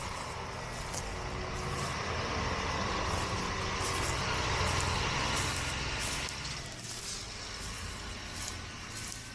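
A vehicle's engine running steadily with a low hum, dying away about six and a half seconds in.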